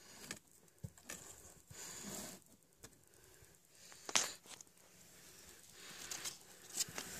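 Soft rustling and handling noises around a cardboard box lined with a blanket, with one sharp click about four seconds in.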